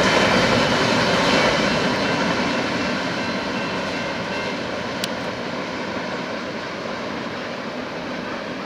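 The last cars of a freight train rolling away on the rails, a steady rumble that fades as the train recedes. A single sharp click about five seconds in.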